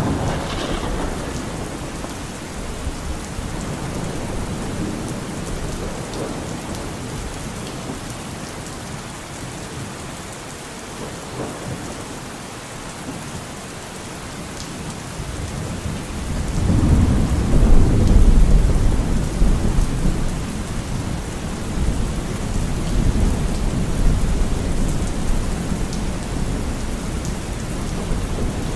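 Steady heavy rainfall with rolling thunder. A long, low rumble of thunder swells up a little past halfway and slowly fades into the rain.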